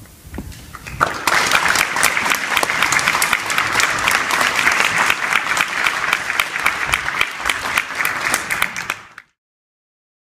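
Audience applauding, with dense clapping that builds in about a second in and cuts off suddenly near the end.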